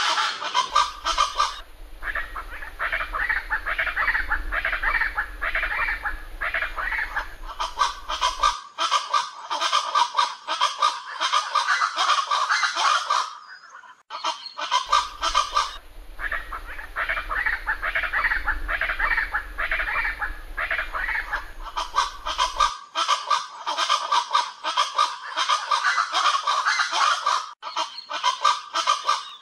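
Aracuã (chachalacas, Ortalis) calling in a raucous group chorus, harsh repeated calls overlapping one another without pause, with a brief break about halfway through.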